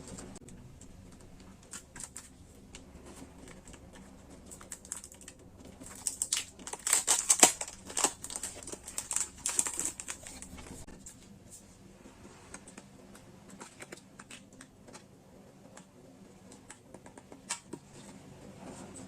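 Close-up ASMR sounds of stationery and its packaging being handled by hand: scattered light taps and clicks, with a denser, louder stretch of crackling handling noise from about six to ten seconds in.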